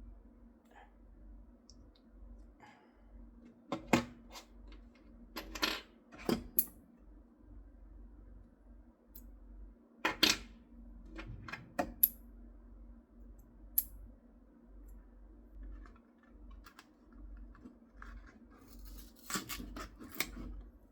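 Small hard parts being handled and set down on a work surface: scattered sharp clicks and short clatters, with a faint steady hum underneath.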